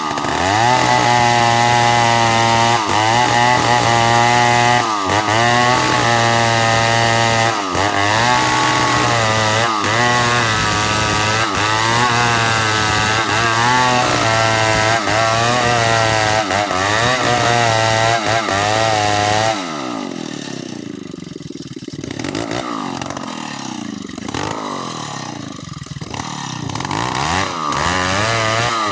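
Chainsaw running at high revs, its pitch dipping briefly every couple of seconds as it bogs under load in the cut into mango wood. About twenty seconds in it drops back to lower, wavering revs, then picks up again near the end.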